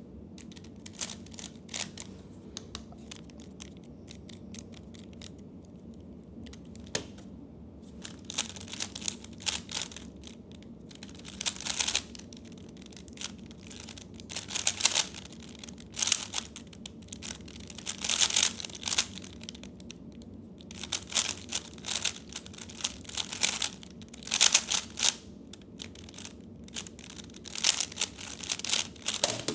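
3x3 speed cube being turned rapidly during a timed solve: bursts of quick clicking layer turns with short pauses between them, sparse at first and denser from about eight seconds in.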